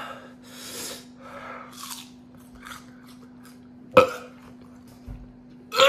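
A man breathing hard through his mouth while fighting nausea, then one sharp, loud gag about four seconds in as the raw onion he has been eating tries to come back up.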